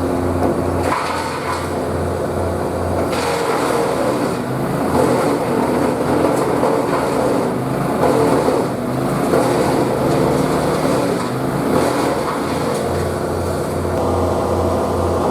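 Wood chipper machine running, a steady low hum under a dense, uneven mechanical rattle with occasional sharp clicks.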